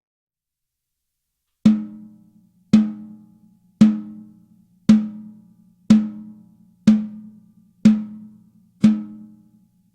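Sonor Designer 14x5" maple-shell snare drum struck eight times, single strokes about one a second after a second and a half of silence, each hit ringing with a low tone and dying away before the next.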